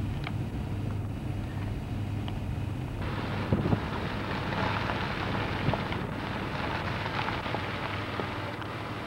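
Steady low hum of a running vehicle. About three seconds in, a loud rushing noise like wind on the microphone joins it, with a few small knocks, and it eases off near the end.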